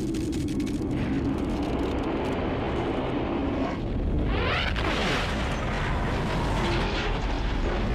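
Film sound effects of a blast scene: a continuous heavy, deep rumble, with sweeping whooshes about halfway through.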